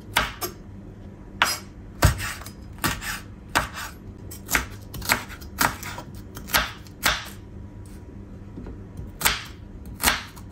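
Large kitchen knife slicing red chillies and a shallot on a wooden cutting board: sharp knocks of the blade on the board, roughly two a second, with a pause of over a second after about seven seconds.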